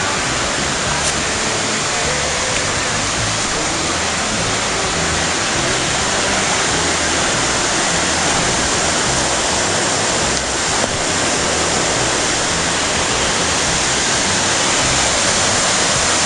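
A waterfall rushing steadily, growing a little louder near the end.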